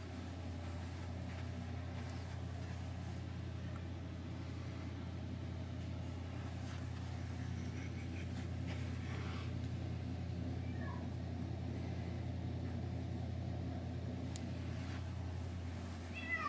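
A steady low mechanical hum, and near the end a short falling cat's meow.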